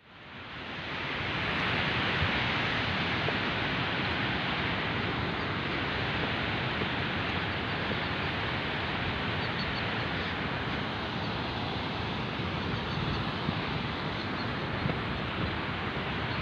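Fast mountain river rushing steadily, fading in over the first second or so.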